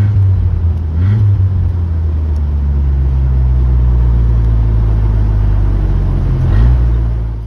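A vehicle's engine and road noise heard from inside the cabin while driving: a steady low drone whose pitch rises briefly about a second in and again near the end.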